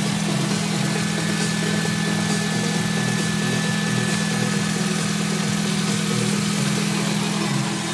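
Nissan GA14 1.4-litre four-cylinder petrol engine idling steadily, with a thin, steady high whine running alongside.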